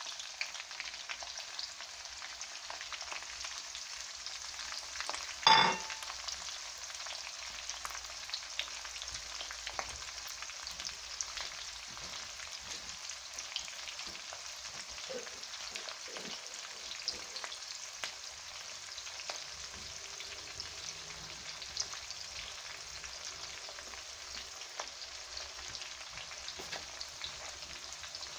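Sliced onion frying in hot oil with cumin seeds in a small saucepan: a steady sizzle with scattered crackles. A single loud knock about five and a half seconds in.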